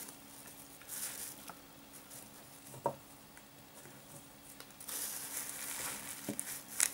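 Clear plastic bags of groundbait rustling and crinkling as they are handled, in two short spells, with a few small clicks and taps.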